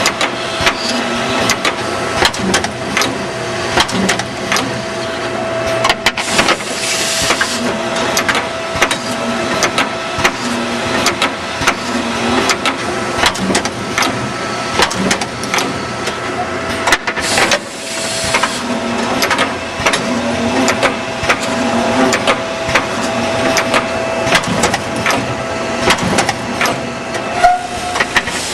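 Automatic feed drill, drive and rivet machine running a part through a wooden board: constant clattering and clicking over a steady tone, with two bursts of air hiss from the pneumatic cylinders, about six and seventeen seconds in.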